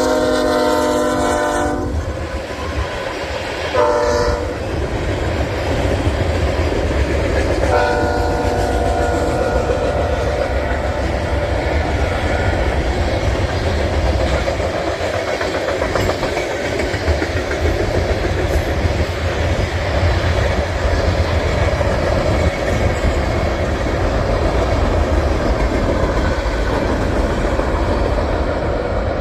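Locomotive horn sounding a chord that cuts off about two seconds in, a short toot about four seconds in, then a longer blast from about eight to twelve seconds. Under it the train runs by with a steady low rumble and clatter of wheels on rail.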